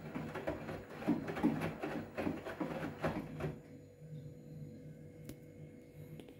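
Front-loading washing machine drum tumbling a load of wet towels, with irregular swishing and soft thuds of the wet laundry. The tumbling stops about three and a half seconds in as the drum comes to rest, leaving a low steady machine hum.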